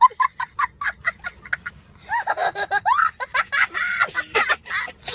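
Meme laughter sound effect: a quick staccato high-pitched laugh, about five short "ha"s a second, then about two seconds in a louder laugh whose pitch wavers up and down.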